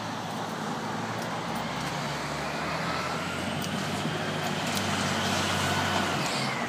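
Garbage truck's diesel engine running as the truck drives closer, a steady low drone that grows gradually louder, with a faint whine that rises in pitch.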